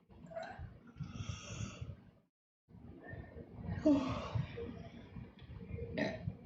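A woman's breathy exhalations and sighs, broken by a short pause, with a louder throaty sound about four seconds in.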